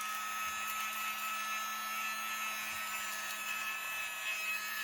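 USB-powered miniature handheld vacuum cleaner running steadily, its small motor giving a high whine over a low hum.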